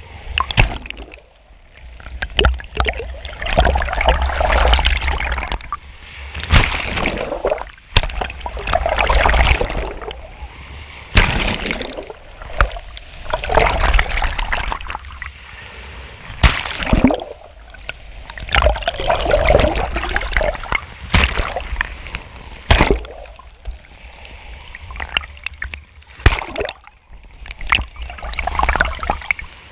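Sea surf washing over and around a camera at the waterline, taking it under at times: swells of splashing, sloshing and gurgling water about every four to five seconds, with sharp splashes between.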